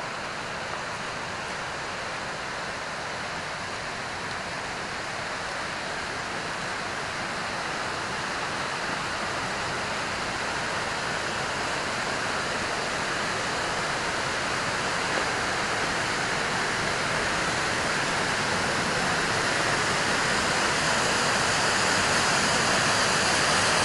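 Dismal Falls, a wide low waterfall spilling over rock ledges on Dismal Creek, rushing steadily. The sound of the water grows gradually louder as the falls are approached.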